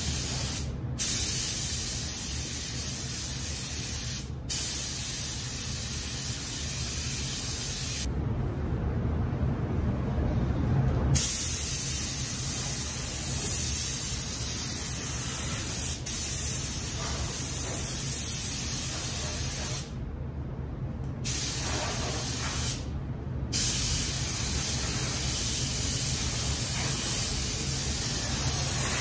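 Compressed-air automotive paint spray gun hissing while the trigger is held, stopping briefly several times as it is released between passes, over a steady low hum.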